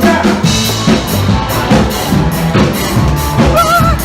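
Live band playing loudly, led by a drum kit with a steady bass-drum and snare beat. Near the end a short wavering note rises over the band.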